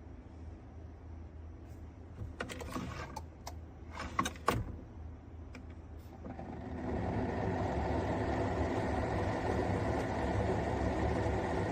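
A few clicks and knocks, then, about six seconds in, the Keurig K-Elite coffee maker's pump starts and runs with a steady mechanical whirr, as it does while brewing.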